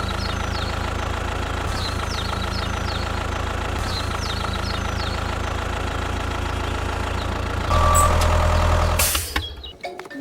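Vehicle engine running steadily, with short high chirps repeating in the background. About three-quarters of the way through it gets louder and deeper for a second or so, then cuts out.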